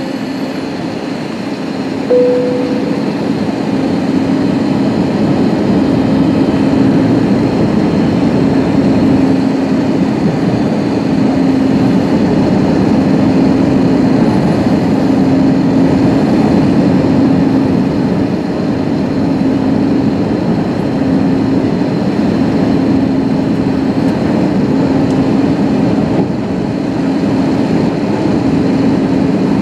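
Cabin noise inside an Airbus A320neo on approach: a steady rush of airflow with the low hum of its CFM LEAP-1A engines wavering in strength. About two seconds in a short tone sounds and the noise steps up a little louder.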